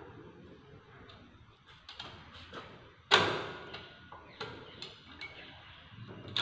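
Small metallic clicks and knocks as rockers and rocker springs are worked onto the rocker shaft of a cylinder head with a screwdriver, with one loud clank about three seconds in.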